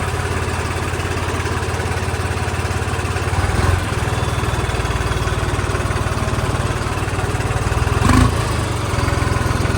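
New Holland 3630 tractor's three-cylinder diesel engine running steadily through a newly fitted silencer, with a brief louder swell about three and a half seconds in and again at about eight seconds.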